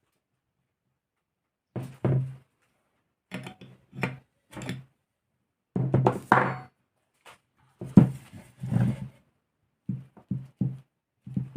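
Intermittent clunks and knocks of hand tools and small metal engine parts handled on a tabletop while a model engine's intake manifolds are taken off. The sound comes in short bursts with silence between them, each burst carrying a low hum.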